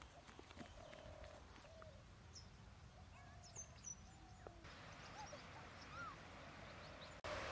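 Faint birdsong over quiet open-air ambience: scattered short chirps and whistled calls at several pitches. About seven seconds in, a louder steady rushing noise cuts in abruptly.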